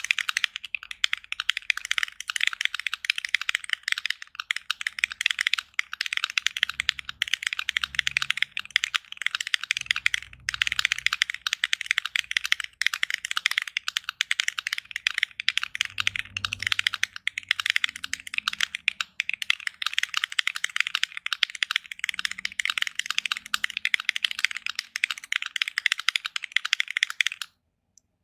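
Fast, continuous typing on a Melody 65 mechanical keyboard with stock JWK Black linear switches, a polycarbonate plate and Cherry-profile keycaps: a dense stream of keystrokes that stops abruptly near the end.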